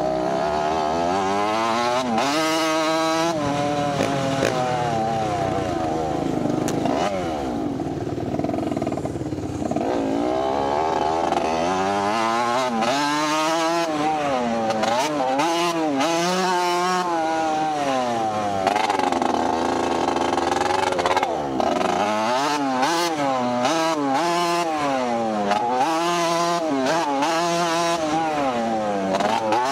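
Motocross dirt bike engine revving up and backing off over and over, its pitch climbing and dropping with the throttle and gear changes.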